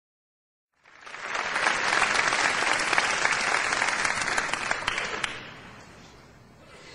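Audience applauding, a dense patter of many hands clapping that swells in about a second in and dies away after about five seconds.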